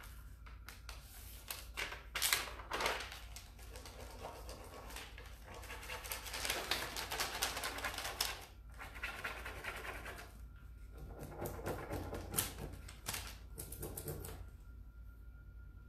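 A plastic-backed decor transfer sheet being worked over deeply grooved wood signs: dense scratchy clicking and rustling as it is rubbed and handled. It comes in several bouts and stops about a second before the end.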